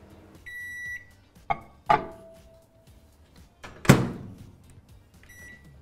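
Microwave oven in use: a half-second beep, a latch click and a glass bowl set down with a short ring, then the door shut with a bang about four seconds in, and a short keypad beep near the end as a new heating cycle is set.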